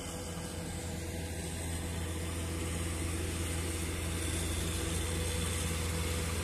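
Heavy diesel vehicle engine running steadily, a low hum that grows slightly louder.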